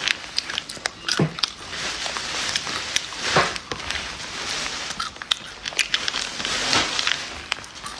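Walnut kernels crackling and clicking: fingers rummage through the pieces in a small tin while they are chewed with crisp crunches, in scattered irregular clicks.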